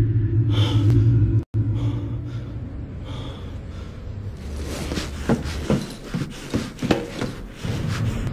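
Action-film soundtrack: a low rumbling drone that cuts off suddenly about a second and a half in, then a quieter tense stretch, and in the second half a string of short sharp knocks at uneven spacing.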